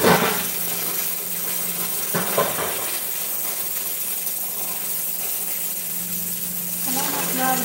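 Steady hiss with a low hum from a pressure cooker heating on a lit gas burner. There is a clink of kitchenware at the start and another about two seconds in.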